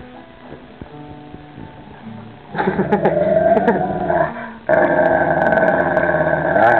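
A dog growling, low at first. About two and a half seconds in it breaks into loud, drawn-out growls, with a brief pause before the last one.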